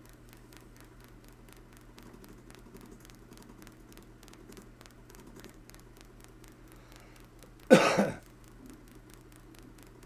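Homemade rotary switch running, its hard-drive bearing contacts clicking in a fast, even train as they make and break the circuit that pulses the coils, over a low steady hum. A loud cough about three-quarters of the way through.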